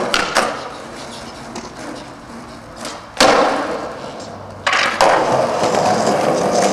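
Skateboard on concrete: wheels rolling, with two sharp clacks near the start and a loud sudden hit about three seconds in. A louder, steady rolling noise starts at about five seconds.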